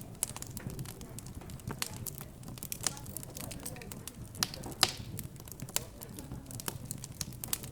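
Wood fire crackling with frequent sharp pops, the loudest a little past the middle, over a low hum of background chatter.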